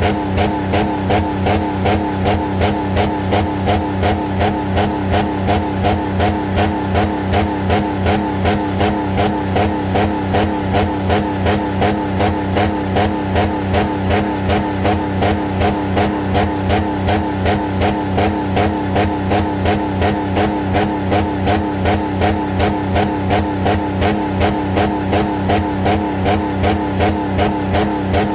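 Jeep Commander engine running with water in its oil pan, with an even, rhythmic pulse about twice a second.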